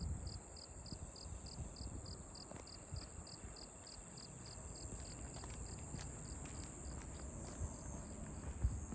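Insects calling: a steady high-pitched trill with a chirp repeating about three times a second over it, the chirping fading out near the end, over a low rumble.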